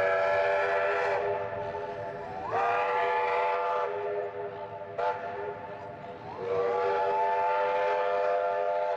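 Steam locomotive whistle sounding a chord of several tones in three long blasts, each sliding up in pitch as the valve opens. The last blast is the longest.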